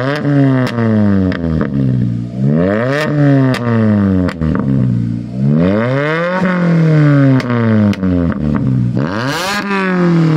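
Mk6 Ford Fiesta ST's 2.0 four-cylinder engine revved four times while stationary, each blip climbing quickly and sinking back more slowly, with sharp crackles from the exhaust throughout.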